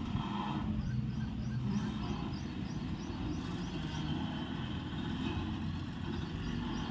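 BharatBenz tipper truck's diesel engine running steadily, with faint, quick high chirps repeating about three times a second through the first few seconds.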